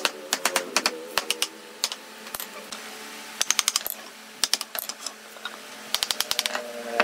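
Hammer knocking wooden table-frame joints together: short runs of sharp taps in quick succession, with brief pauses between the runs.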